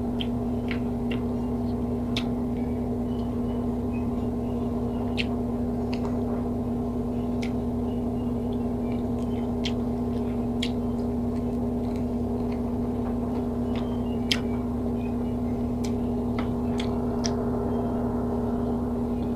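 A steady electric hum with a low drone runs throughout as the loudest sound. Over it come scattered short, sharp clicks of close-miked chewing and of fingers picking at food.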